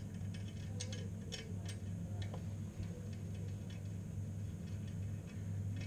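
Scattered light clicks and ticks of a wing nut and metal washer being fitted and hand-tightened onto a toilet's close coupling bolt under the ceramic cistern, over a steady low hum.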